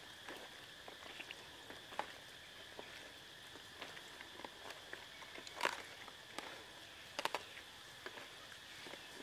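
Hands kneading raw pig intestines with herbs and chilli on a lotus leaf: quiet wet squelches and small clicks, with a louder squish about five and a half seconds in and two more near seven seconds.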